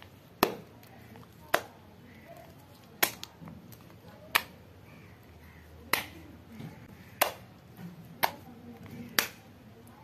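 Clear slime mixed with coffee, creamer and sugar being kneaded and squeezed by hand, giving sharp clicking pops about once a second, eight in all, with soft squishing between them.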